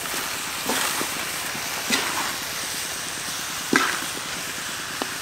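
Chicken and vegetables sizzling in a large wok, with a metal spatula scraping through and tossing them three times.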